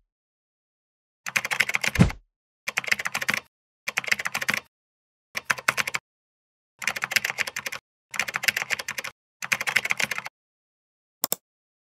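Computer keyboard typing: seven short bursts of rapid key clicks, each under a second with silent gaps between, and a brief final burst near the end. A low thud comes about two seconds in.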